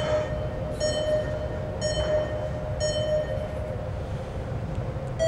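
Short electronic beeps, each a stack of high pitches, repeat about once a second over a steady hum. They are typical of a race-start countdown while micro RC cars wait motionless on the grid.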